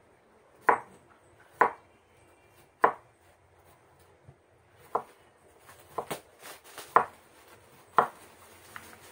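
Large kitchen knife slicing a cucumber on a wooden chopping board: about eight sharp knocks of the blade on the board, unevenly spaced, mostly about a second apart, with a pause of about two seconds in the middle.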